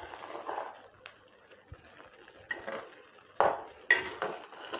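A spoon stirring thick, cheesy risotto in an earthenware pot: irregular scrapes and knocks of the spoon against the pot, with two sharper knocks near the end.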